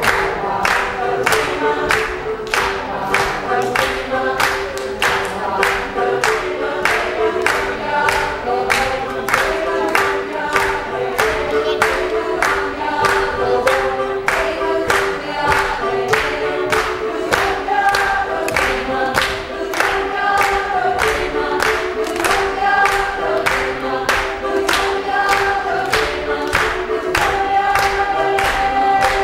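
Marimba ensemble playing: mallet strikes on a steady quick beat over held, rolled notes.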